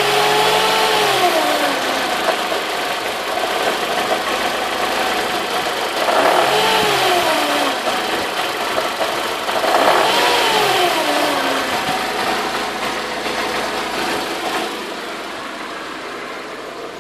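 Mercedes-Benz W202 C180's four-cylinder petrol engine, dropping back from a rev at the start, then blipped twice more, about six and ten seconds in, each time falling back to idle, and idling more quietly near the end. The owner puts a noise in it down to the timing chain.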